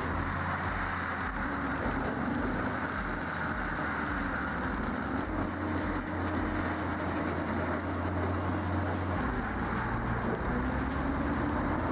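Heavy machinery running steadily, a constant engine drone with a low hum that shifts slightly about nine seconds in.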